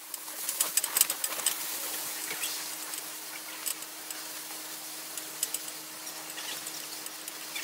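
Water in a portable ice bath tub sloshing and trickling as the bather shifts, with scattered small clicks and crackles, densest about a second in.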